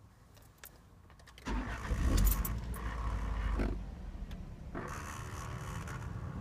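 A few light clicks, then about a second and a half in the 2004 Dodge Stratus's 2.4-litre four-cylinder engine cranks and starts, flaring up briefly before settling into a steady idle.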